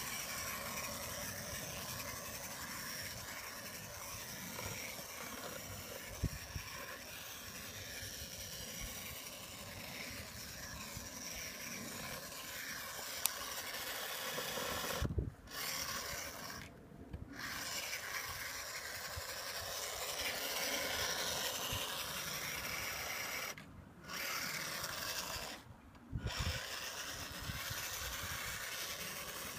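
Electric motor and gear drive of an HSP Kulak RC rock crawler running as it crawls over gravel and dirt, with four short pauses in the second half.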